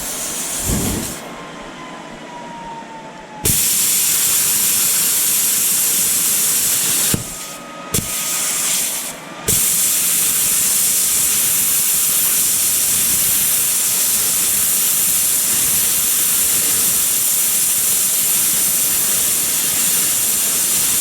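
Plasma cutter cutting a thick metal bracket: a loud, even hiss that starts about three and a half seconds in, breaks off for about two seconds around seven seconds in, then runs on. The cutter is turned down too low, so it struggles to cut through.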